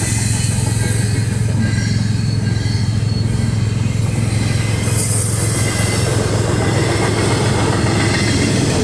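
Double-stack intermodal container freight train rolling steadily through a road crossing: a continuous rumble of wheels on rail as the well cars pass.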